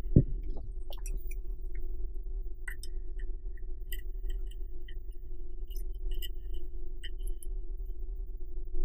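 Steady low electrical hum with a faint held tone underneath. Faint irregular crackling ticks run through the middle, as solder and flux sputter at the tip of a soldering iron joining two wires.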